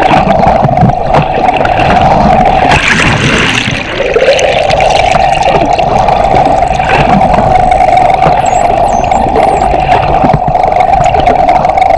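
Underwater recording dominated by the steady hum of a boat's engine and propeller carried through the water. About three seconds in, a rush of water noise breaks it, and the hum slides back up to its steady note a second later. Faint, wavering high-pitched dolphin whistles come through near the end.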